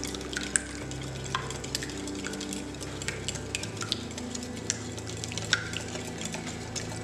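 Wire whisk beating a runny egg-and-oil mixture in a glass bowl, with light, irregular clicks as the wires strike the glass.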